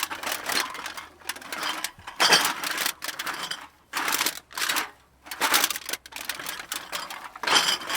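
Empty bottles clinking and rattling against one another, heard from a distance. The clatter comes in a string of short bursts, each a second or less, with brief pauses between.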